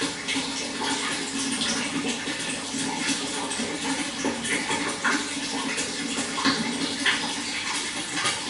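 Running water trickling and splashing steadily, with many small splashes.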